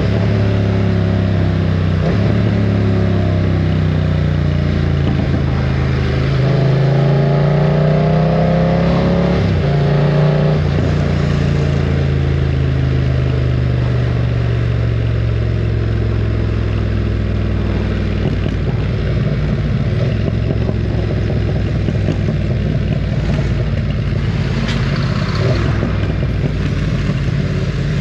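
BMW F900 R motorcycle's parallel-twin engine under way: it climbs in pitch under acceleration from about six to ten seconds in, drops at a gear change, then runs at a steady cruise.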